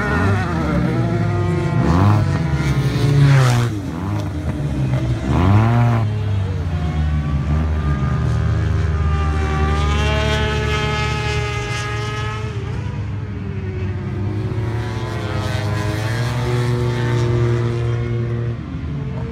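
Yamaha TMAX maxi-scooters' parallel-twin engines racing on a circuit. Several machines sweep past with falling pitch a few times in the first six seconds, then settle into a steady drone of engines running round the track at speed.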